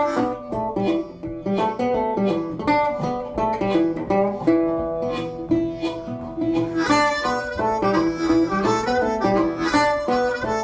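Background music: a harmonica holding notes over quickly plucked strings, with a steady rhythm of note attacks.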